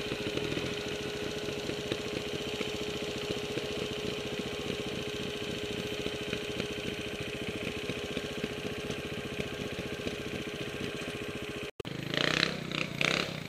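Trials motorcycle engine running at a steady low speed, a fast, even pulsing with a steady tone through it. Near the end the sound cuts out for an instant and louder, uneven bursts of engine sound follow.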